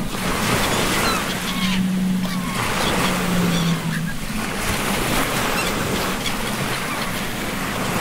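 Ocean waves surging and breaking in a continuous swelling wash, with seagulls calling faintly now and then. Two low drawn-out tones come in, one at about a second and a half and one around three seconds, the second stepping down in pitch near its end.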